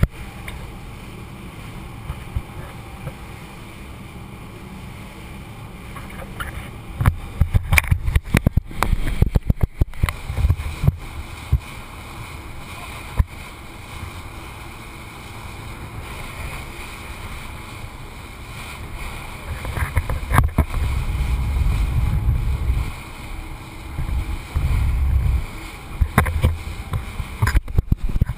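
Rigid inflatable boat running fast over choppy sea, heard muffled through a waterproof camera housing. A steady low rumble swells into louder stretches of wind buffeting about a quarter of the way in and again in the later part, with scattered sharp knocks as the boat slaps through the waves.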